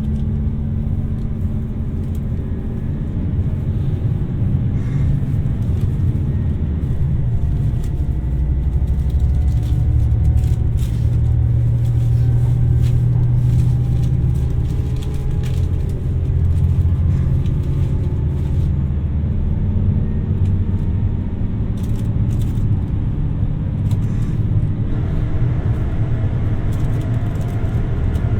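2700 series diesel limited express train heard from inside the passenger cabin: a steady low rumble of the underfloor diesel engines and running gear on the track, with a faint whine slowly rising in pitch through the middle.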